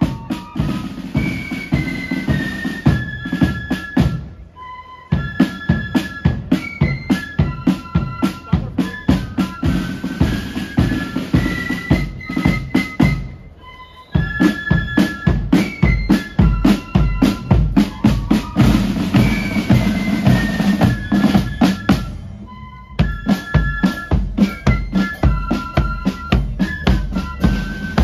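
Marching flute band playing a tune: flutes carry the melody over rapid side drums and a bass drum, with a short break between phrases about every nine seconds.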